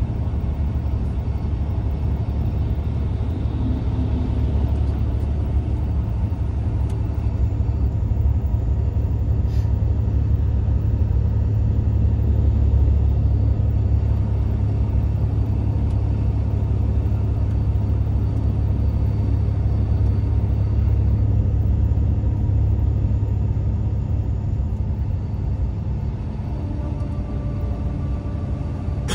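Steady low rumble of a moving road vehicle: engine and road noise heard from inside.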